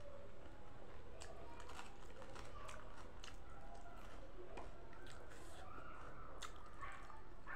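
Chewing, with scattered small clicks as rice and food are picked up by hand from a plate.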